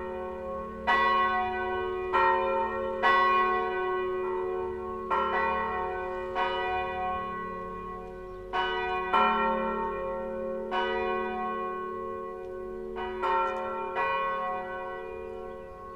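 Church tower bells swinging and ringing together in a full peal, bells tuned to F-sharp and A-sharp among them. The strikes fall irregularly, about one a second, each ringing on and overlapping the next.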